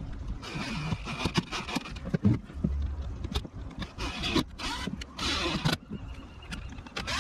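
Power drill/driver running in several short bursts while driving screws, with a thin motor whine.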